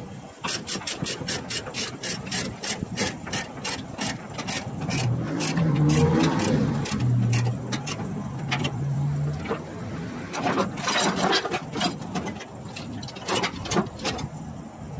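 Ratchet chain binder being cranked to tighten a tie-down chain, its pawl clicking about four or five times a second, then more irregular clicks and chain rattle later on. A low hum rises for a few seconds in the middle.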